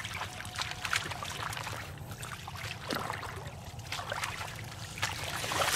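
Bare feet wading through shallow water in a flooded grass field, with irregular splashes and trickling water.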